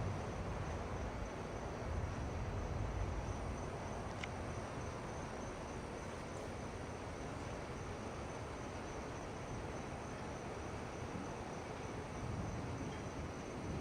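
Night insects, crickets among them, chirring steadily, with a soft low rumble swelling near the end.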